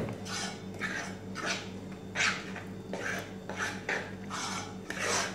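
Thick herb batter being stirred and scraped in a saucepan, a wet scraping stroke about twice a second.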